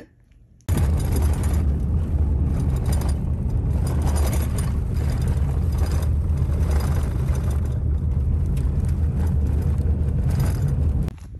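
Car driving on an unpaved road, heard from inside the cabin: a steady rumble of engine and tyre noise that starts suddenly about a second in and cuts off just before the end.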